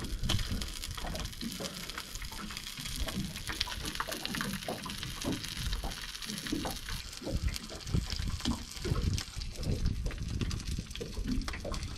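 Water lapping and slapping against the hull of a small aluminium boat at anchor, an irregular run of soft knocks with a few sharper clicks.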